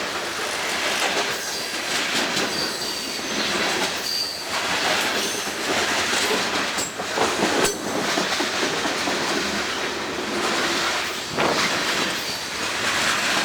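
Freight train rolling past: steady rumble of wheels on rail with a few sharp clanks and brief, faint high-pitched wheel squeal.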